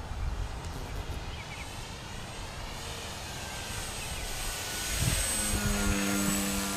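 Electric motor and propeller of an E-flite Timber RC plane whining in flight, with wind rumbling on the microphone; the whine swells about five seconds in as the plane comes closer.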